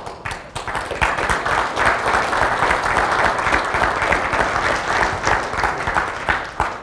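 Audience applauding, a dense patter of many hands clapping that starts abruptly, swells over the first second, holds steady and dies away near the end.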